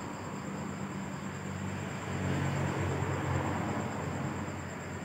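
A 2000-size spinning reel being cranked by hand: a low, steady gear whir, a little louder about two seconds in.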